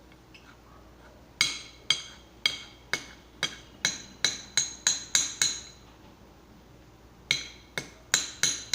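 A spoon striking a hard container again and again, sharp ringing clinks: a run of about a dozen getting quicker, then after a pause of nearly two seconds four or five more near the end.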